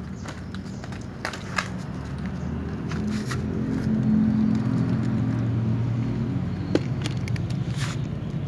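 Cats crunching dry kibble, a few sharp crunches spread out, over a low steady rumble that swells about four seconds in.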